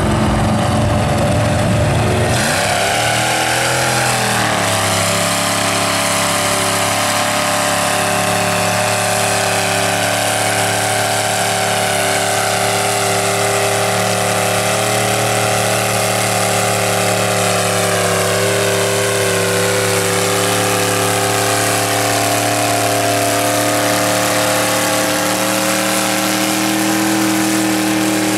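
Mud truck engine on tractor tires running hard and loud under load as the truck ploughs through a deep mud pit. The engine note dips and climbs back about two to four seconds in, then holds a steady pitch.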